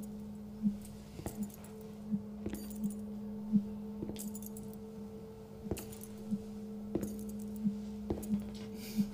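Dark ambient intro to a death metal demo: a steady two-note drone overlaid with irregular sharp clicks and clinks that ring briefly, roughly one every half second to second.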